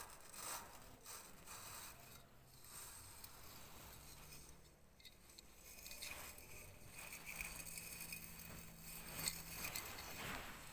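Faint scraping, rubbing and light clicking of small hard parts being handled.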